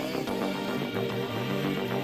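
Background music: an electronic track with a steady pulse and a moving bass line.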